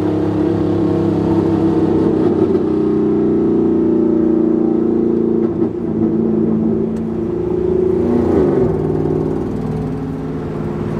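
Vehicle engine running steadily, heard from inside the cabin while driving, with a brief change in pitch about eight and a half seconds in.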